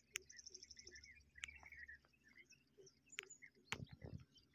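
Faint birds chirping, with a fast high trill near the start, over quiet outdoor ambience. Three sharp clicks are spaced through it, and a brief low rumble comes near the end.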